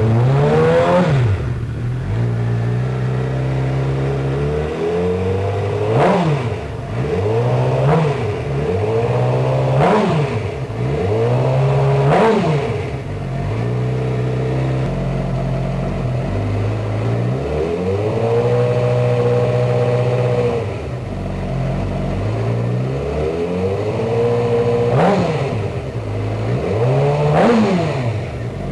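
Engine idling and being revved repeatedly: about eight quick rises in pitch that drop straight back to idle, with one rev held for a couple of seconds near the middle.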